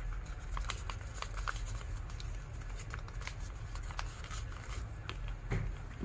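Sheet of origami paper crinkling and crackling as hands pull open and press a folded paper boat into shape, with a thump about five and a half seconds in as the boat is set on the table. A steady low hum runs underneath.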